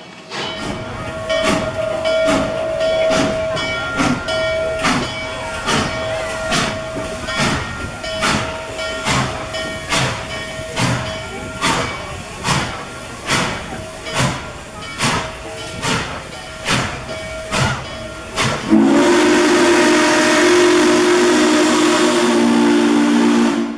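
N&W Class J 611 steam locomotive's bell ringing steadily, nearly two strikes a second, as the engine rolls slowly. About nineteen seconds in, the locomotive's chime steam whistle blows, a chord of several tones, held for about five seconds and cut off sharply near the end.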